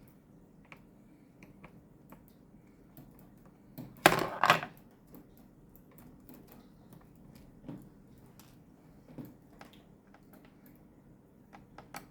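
Small scattered clicks and taps of a screwdriver turning out the bottom-panel screws of a Lenovo L340 laptop, with a brief loud double clatter about four seconds in.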